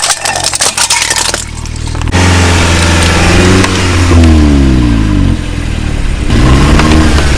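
A rapid burst of cracking and crunching as objects are crushed under a car's tyre. Then the car's engine runs loudly, its pitch sliding down and then rising and falling again near the end.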